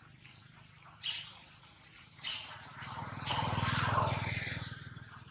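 Birds chirping: several short, high chirps, the loudest just before halfway, with a low rumble that swells and fades over the second half.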